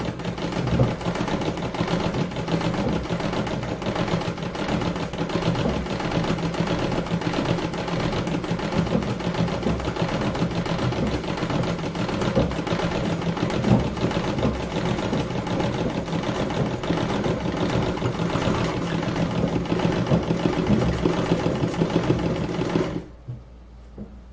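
Treadle sewing machine stitching steadily at a fast, even pace as it does free-motion embroidery fill on hooped fabric, then stopping suddenly near the end.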